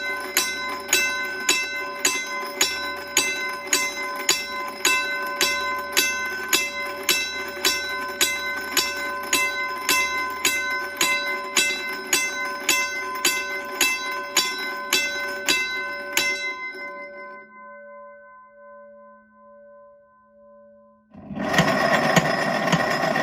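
1950s Western Railroad Supply Company motorized mechanical crossing bell, its motor-driven hammer striking the gong about three times every two seconds in a slow, sharp clang over a faint motor hum. About 16 seconds in the striking stops and the gong rings down slowly. About 21 seconds in, a loud, rough mechanical running sound starts suddenly.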